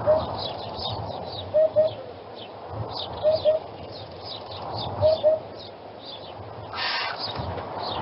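Hoopoe calling a double 'hoop-hoop', repeated four times at intervals of about one and a half to two seconds. Smaller birds chirp faintly and high in the background, and there is a brief rushing noise about seven seconds in.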